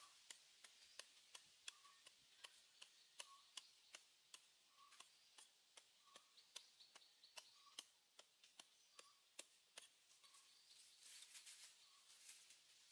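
Small hand hoe chopping into dry forest soil: light, quick strikes about two to three a second.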